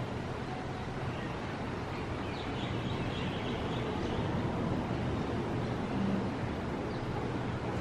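Evening outdoor ambience: a steady hiss of background noise with a few faint bird chirps.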